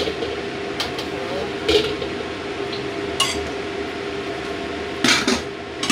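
A metal wok being handled on a gas stove, knocking and clattering several times, with the loudest clatter about five seconds in, over the steady hum of a kitchen range hood fan.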